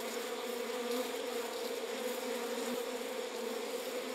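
Many honeybees buzzing together in a steady, dense hum.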